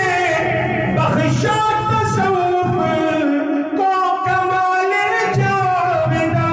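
A man singing a manqabat, a Sufi devotional song in praise of Gharib Nawaz, in long held, ornamented notes that slide between pitches.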